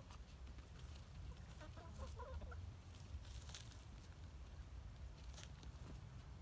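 Hens clucking softly in a short run of low calls about two seconds in. Brief scratchy rustles follow as they scratch through soil and dry plant stalks.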